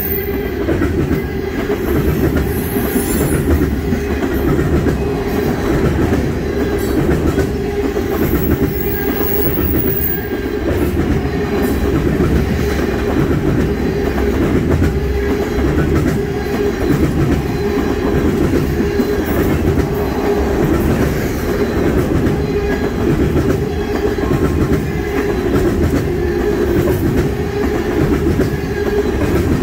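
Railroad tank cars of a freight train rolling past close by: a steady rumble of steel wheels on rail with a regular clickety-clack.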